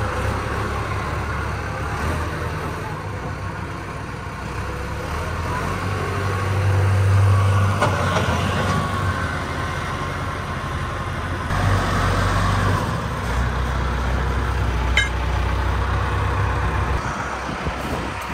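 Case IH loader tractor's diesel engine running as the tractor drives and manoeuvres, a steady low rumble that revs up twice for a few seconds, with one short sharp tick in the later rev.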